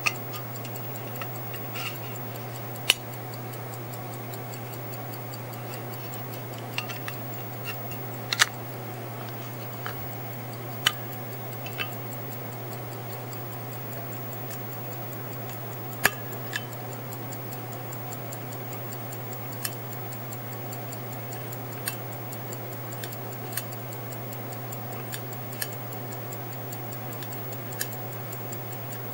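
Le Phare 18k gold quarter-repeater chronograph pocket watch ticking steadily, with a scattering of sharper, louder clicks as the hunter case is handled.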